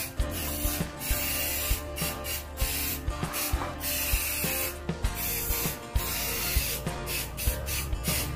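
Aerosol can of black spray paint hissing in a run of sprays, cut by several brief pauses as the nozzle is released and pressed again.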